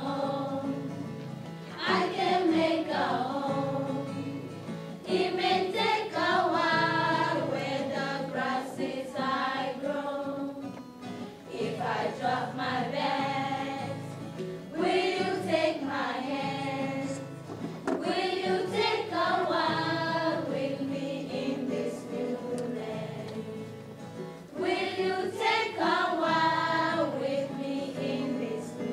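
A small group of girls singing a song together, in phrases of a few seconds with short breaks between them.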